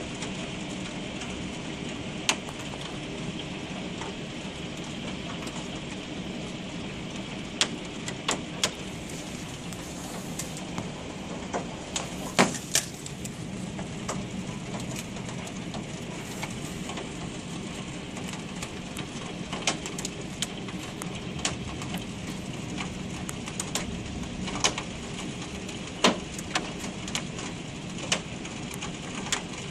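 Hailstorm heard from indoors through window glass: a steady hiss of falling hail, with scattered sharp clicks of hailstones striking the pane, the loudest about twelve seconds in and again near the end.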